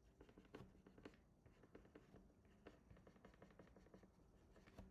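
Near silence with faint, irregular light ticks and taps of a stylus working on a drawing tablet, over a low room hum.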